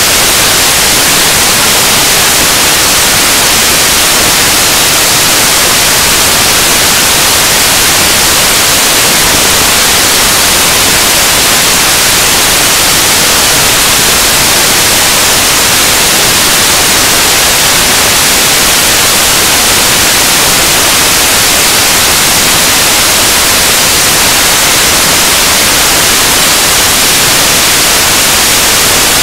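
Loud, steady hiss of static, like white noise, with no speech audible through it.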